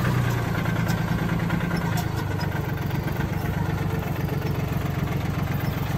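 Small John Deere compact tractor's engine running steadily at low speed, its note changing slightly about two seconds in.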